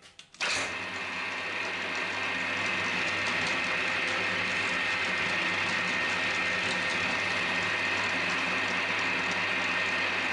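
Cormak ZX 7045 geared-head mill-drill running steadily with a gear whine, its spindle drilling holes in an aluminium plate. It starts about half a second in.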